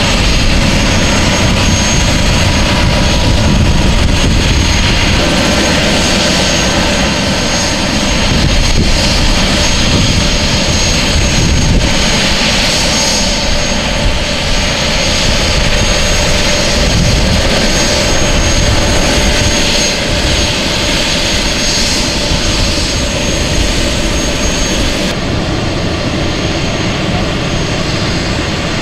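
Eurocopter EC130 air-ambulance helicopter running on the ground with its rotor turning: a steady high turbine whine over the rotor's rushing wash. The upper part of the whine and hiss thins out a little near the end.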